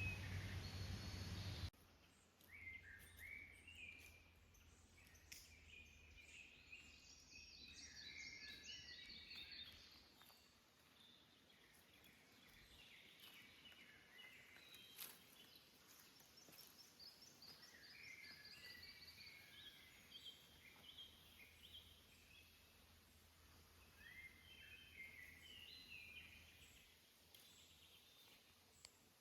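Faint birdsong in a forest: small birds repeat short chirping phrases on and off. For the first couple of seconds a louder steady noise with a low hum covers it, then cuts off abruptly.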